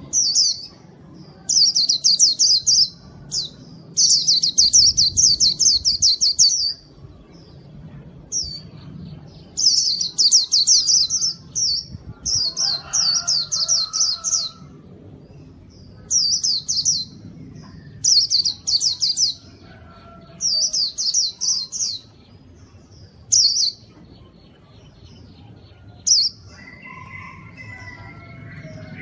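A white-eye (pleci) singing in full voice (gacor): fast, high twittering trills in phrases of one to two seconds, repeated again and again with short pauses between them.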